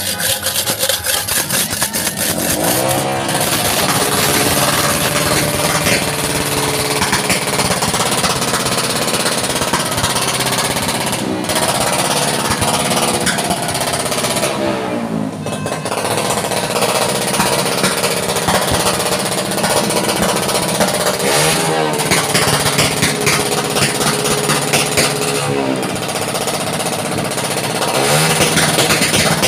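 A string of firecrackers going off in a rapid, continuous crackle of bangs.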